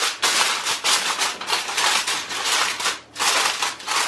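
Aluminium foil crinkling and rustling as hands crumple and fold it to cover a roasting tray, in repeated bursts with a short break about three seconds in.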